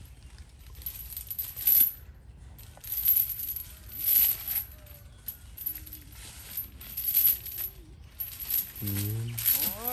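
Metal elephant chain clinking and rattling in short, irregular bursts as it is being fastened around a tree.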